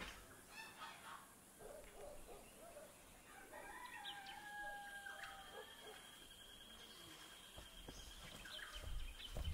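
A rooster crowing once, faint, about three and a half seconds in, with scattered soft poultry calls around it. A thin steady high tone runs underneath from about four seconds on.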